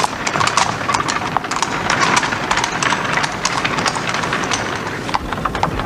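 Hooves of a cab horse clip-clopping in a steady, irregular patter, a horse-drawn cab on the move.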